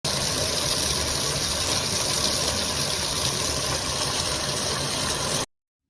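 Steady rush of water spraying from a pet shower hose attachment. It starts abruptly and cuts off suddenly near the end.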